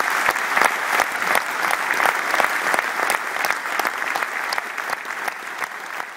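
Audience applauding, loud at first and gradually dying down.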